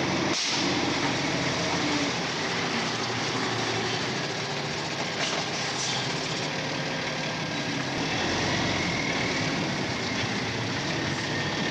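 MAN F8 26.291 hook-lift truck's diesel engine running steadily as the truck drives slowly and turns, with a short knock about half a second in.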